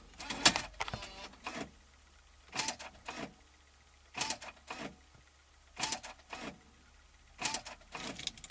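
Replacement radio's internal loading mechanism cycling on power-up: short motor whirs and clicks in pairs, repeating about every second and a half. The owner hears this as a sign of something wrong inside the unit.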